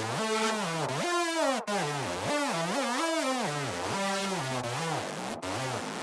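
Xfer Serum software synthesizer playing a misc preset: one buzzy tone with many overtones, sliding continuously up and down in pitch. It breaks off briefly under two seconds in and again near the end.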